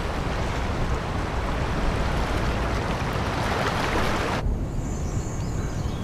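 Steady rushing noise of water and wind over a shallow river, cutting off abruptly about four and a half seconds in. After the cut there is a quieter low rumble with a faint, thin high sound.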